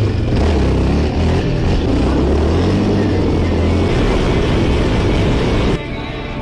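Off-road 4x4 vehicle's engine running loud and low, breaking off abruptly near the end.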